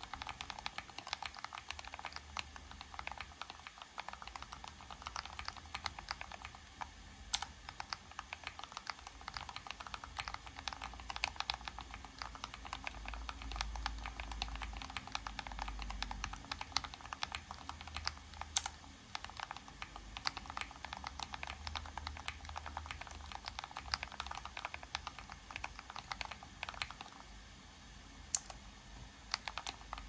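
Fast typing on a split mechanical keyboard: a dense, continuous clatter of key clicks, thinning out briefly near the end.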